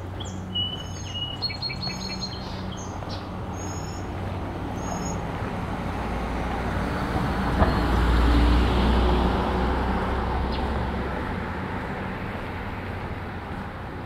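A road vehicle passes by: its tyre and engine noise swells to a peak about eight seconds in, then fades away. Birds chirp during the first few seconds.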